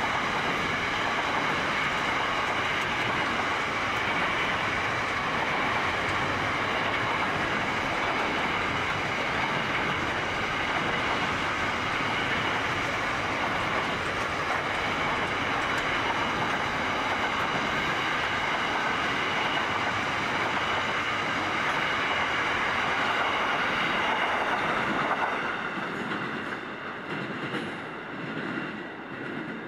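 Freight train of container-laden wagons rolling past, its steel wheels running on the rails with a steady rolling noise and thin high ringing tones above it. The sound fades away near the end as the last wagon passes.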